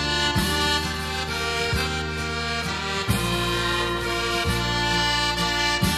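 Background instrumental music: sustained chords over a low bass note that sounds about every second and a half.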